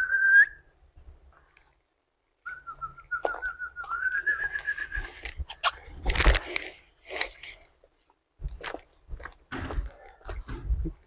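A person whistling: a short high whistle, then a longer wavering one that warbles and rises slightly. After it comes a run of scattered crunching clicks and taps.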